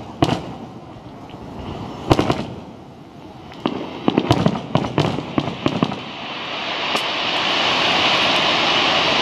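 Fireworks display: aerial shells bursting with sharp bangs just after the start and about two seconds in, then a quick run of cracks between about four and six seconds. After that a steady hiss swells toward the end.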